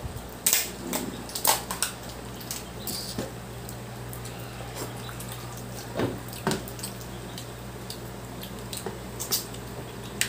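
Shellfish eaten by hand: irregular short crackles, clicks and wet squishes of shells being pulled apart and chewed, over a low steady hum.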